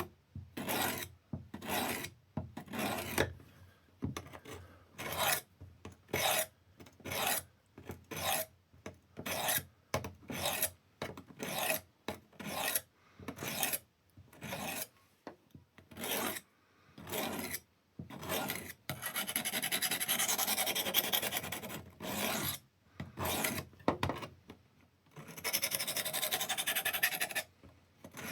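A knife blade drawn across the abrasive of a Work Sharp Field Sharpener, scraping in short, even strokes nearly two a second, sharpening a very dull edge. Near the end come two longer, unbroken scrapes of about three seconds each.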